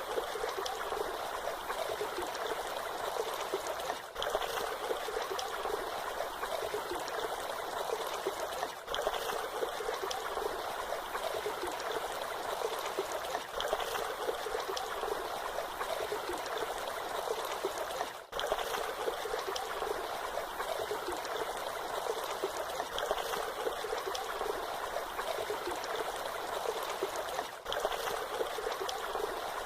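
Waterfall water rushing and splashing steadily, with a few very short dips in level.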